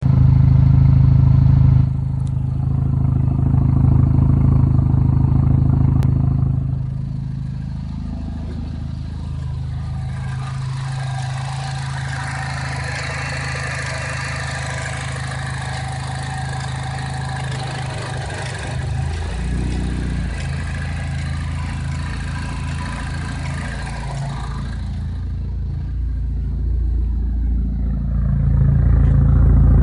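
Chevrolet Cobalt SS engine idling roughly with the oil filler cap off; the idle note shifts about two-thirds of the way in. An airy rushing sound joins it through the middle stretch.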